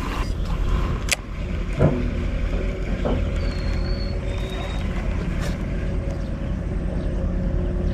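Steady low rumble of a running motor, with a sharp click about a second in.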